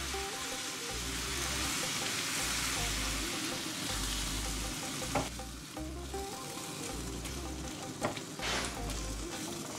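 Salted raw mango pieces and their brine sizzling in hot spiced coconut oil as a silicone spatula stirs them round the pan. The hiss is steady for about five seconds, then dies down, with a few scrapes of the spatula.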